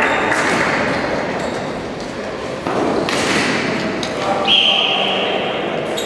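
Floorball play in a large hall: sharp clacks of sticks and the plastic ball, and players calling out, echoing around the hall. A brief high-pitched tone sounds about two-thirds of the way in.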